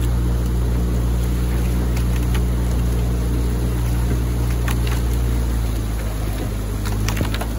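Outboard motor of a coaching launch running at a steady cruise, a continuous low drone, with a few sharp clicks and splashes from the rowers' oars and water.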